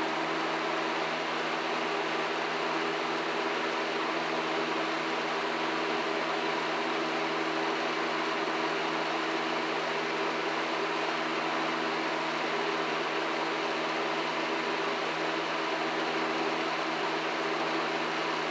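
Air King 9733 20-inch box fan running steadily on its high speed: an even rush of air over a steady motor hum.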